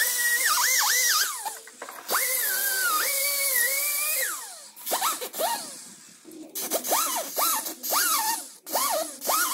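Pneumatic wrench on an air hose working nuts at a car's wheel hub, run in bursts: two longer runs in the first four seconds, then a string of short trigger pulls, its whine rising and falling with each.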